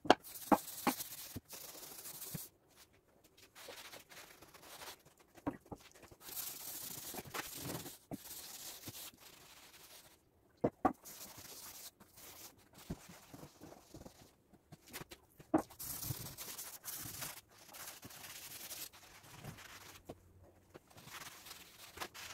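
A pad scrubbing along the grain of a stripped oak door wet with stripper after-wash, in strokes of a second or two with short pauses, and a few sharp clicks and knocks between them.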